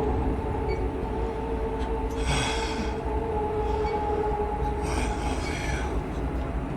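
Steady, squealing drone from a horror film's soundtrack, held over a low rumble, with two short hissing bursts about two and five seconds in.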